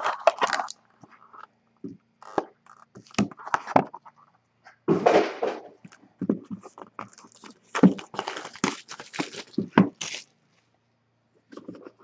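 Hands handling a cardboard trading-card box and foil-wrapped packs: irregular crinkling, rustling and light knocks of foil and cardboard in short bursts, with a pause near the end.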